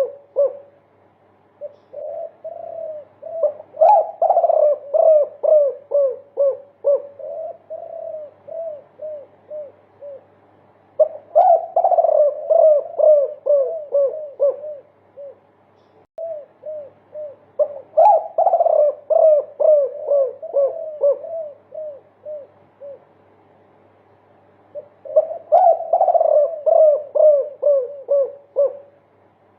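Derkuku (island collared dove) cooing in long runs of quick repeated 'kuk' notes, about three a second, in several phrases with short pauses between them: the multi-'kuk' call that birdkeepers prize.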